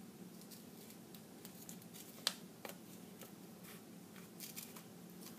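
Scissors snipping through paper: a run of short, faint snips, with one sharper, louder snip a little over two seconds in.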